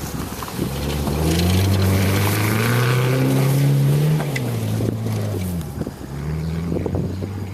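A car engine driven hard, its revs climbing steadily for about three seconds, dropping away, then picking up again near the end.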